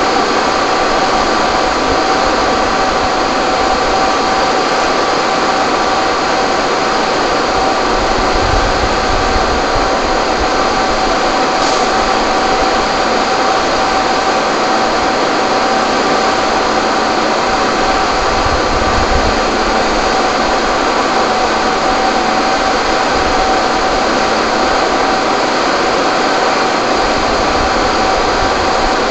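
Fire engine running its water pump, a loud, steady engine drone with a constant whine through it, while its hoses are charged.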